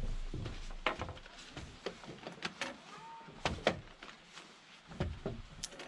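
Camping gear being handled and set down on a wooden deck: a string of light knocks and clicks, with a short faint whistle about halfway through.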